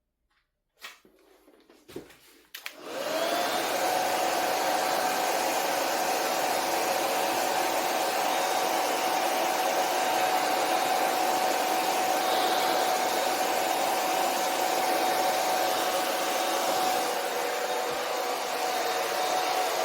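Handheld hair dryer switched on about three seconds in, after a few handling knocks, then running steadily with a constant whine over its rushing air, drying a freshly washed wig.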